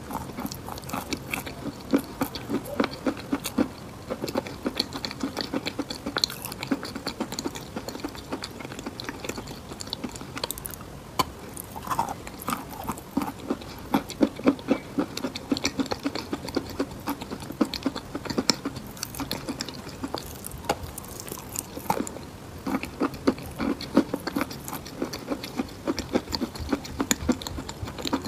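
Close-up chewing of a mouthful of wet chalk: a steady run of small, irregular crunches and crackles.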